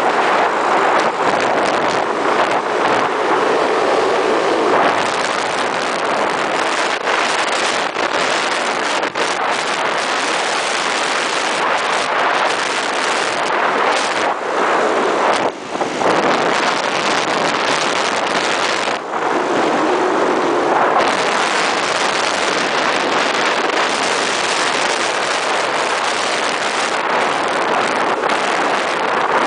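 Wind buffeting the microphone of a scooter ridden fast around a race track, with the scooter's engine running beneath it.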